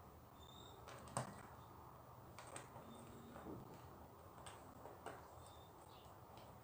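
Small plastic Lego pieces being handled and pressed onto a baseplate: a few faint clicks and taps, the sharpest about a second in.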